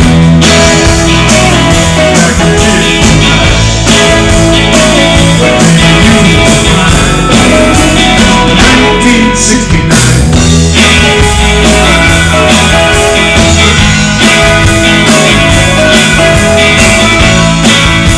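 Live rock band playing loud: electric guitars, bass guitar and drum kit.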